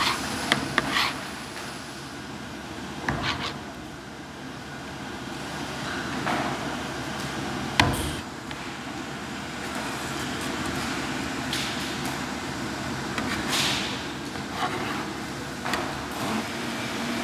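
A knife and spatula scraping and tapping soft fish paste on a plastic cutting board in a kamaboko workshop: scattered short scrapes and light knocks, with one sharp knock about eight seconds in, over a steady machinery hum.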